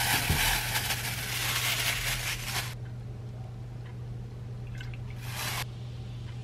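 Plastic bag crinkling and rustling for almost three seconds as frozen sliced pork is shaken out of it into a glass bowl, then a short second rustle about five seconds in, over a low steady hum.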